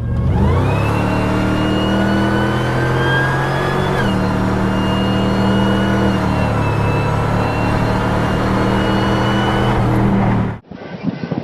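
1999 Ford SVT Lightning's supercharged 5.4-litre V8, running a 2.3-litre Kenne Bell supercharger, accelerating hard with a high supercharger whine climbing alongside the engine note. About four seconds in, the pitch drops at a gear change, and the engine then pulls on at a steadier note until the sound cuts off abruptly near the end.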